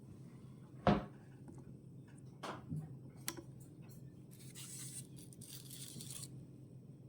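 Handling of miniature kitchen utensils: one sharp knock about a second in, a few lighter clicks and taps, then about two seconds of soft hissing, over a low steady hum.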